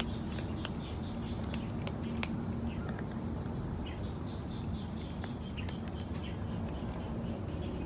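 Cats crunching dry kibble: irregular sharp little clicks and crunches, with repeated high chirps in the background.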